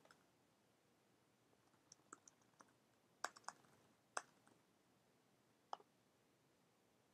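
Faint computer keyboard keystrokes and mouse clicks: about nine short, sharp clicks scattered irregularly between about two and six seconds in, over near silence.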